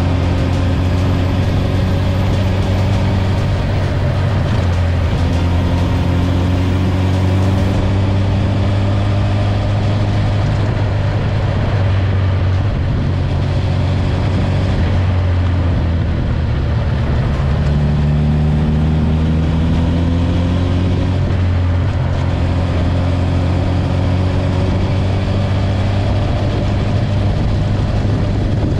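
Exhaust note of a Honda CB1000R's inline-four engine through a G&G exhaust with the baffle fitted, on the move. The pitch rises and falls several times as the throttle is worked.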